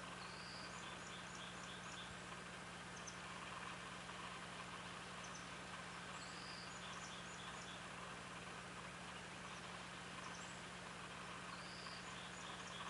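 A small songbird sings the same short, high phrase three times, about every five or six seconds: a slurred note followed by a quick run of short notes. Under it run a steady low hum and a faint hiss.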